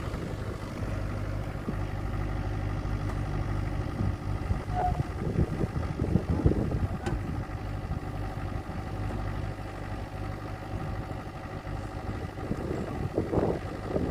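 Backhoe excavator's diesel engine running steadily, with louder, rougher surges about five seconds in and again near the end.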